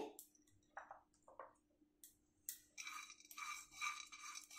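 Silicone spatula stirring pumpkin and melon seeds as they dry-roast in an empty non-stick kadhai: faint, quick scraping strokes, about three a second, starting about two and a half seconds in. Before that, a few light ticks of seeds being sprinkled into the pan.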